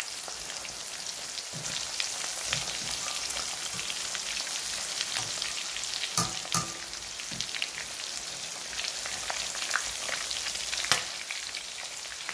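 Steamed, masala-coated chicken pieces sizzling and crackling steadily in hot oil in a stainless steel kadai. A wire spider strainer clinks against the pan as the pieces are turned, with a couple of sharper clinks about six seconds in and one near eleven seconds.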